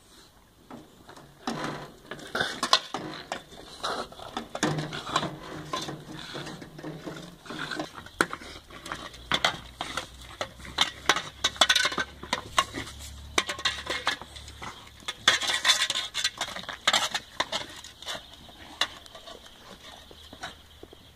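A French bulldog chewing and dragging a bristle broom across paving stones: irregular clicking, scraping and rattling as the bristles are bitten and the wooden handle knocks and scrapes on the stones.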